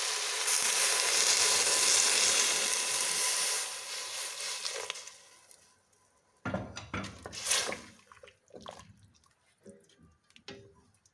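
Fish broth poured into a pot of frying onion, carrot and potato: a loud hiss of liquid hitting the hot pot that dies away after about four to five seconds. Scattered knocks and clatters follow.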